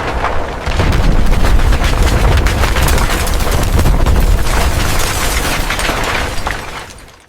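Explosion sound effect: a heavy low rumble dense with rapid crackles, swelling about a second in and fading out near the end.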